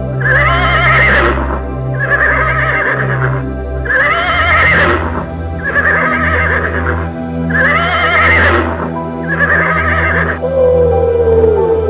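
Horse whinnying six times in a row, each call just over a second long with a trembling, wavering pitch, over steady background music. A lower drawn-out tone slides downward near the end.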